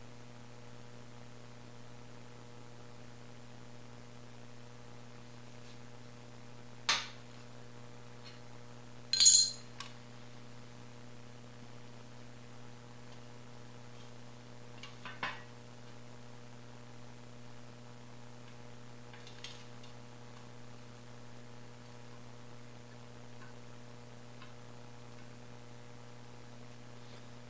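A few short, sharp metallic clinks from handling the aluminium housing and circuit board of a Ford EEC-IV engine computer, the loudest a cluster about a third of the way in, over a steady electrical hum.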